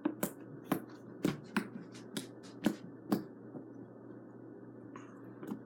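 Slime being pressed and poked with the fingers, making sharp wet clicks and pops about twice a second, which fade out about three seconds in.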